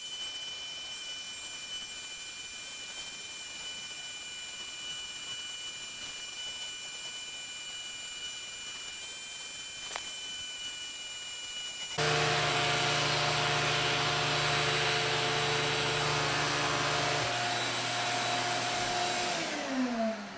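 Vacuum cleaner running with a Flowbee clipper head on its hose: a steady motor whine over hiss. About twelve seconds in it turns suddenly louder and lower-pitched, and near the end the pitch falls away as the motor winds down.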